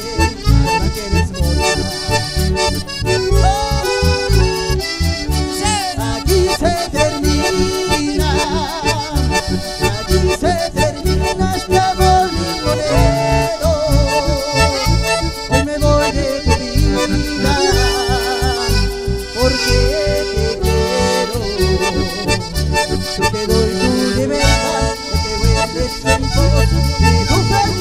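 Live band playing an instrumental passage with no singing: a button accordion carries the melody, with bandoneón, acoustic guitar and bass guitar underneath and a steady rhythm in the low end.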